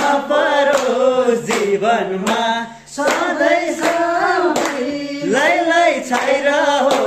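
Men singing a Nepali folk song with steady hand clapping, a little more than one clap a second; the voice breaks off briefly about three seconds in.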